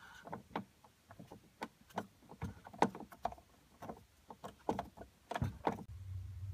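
Hand ratchet clicking in short irregular runs as a Torx bit socket turns a dash trim screw. A low steady hum comes in a little after five seconds.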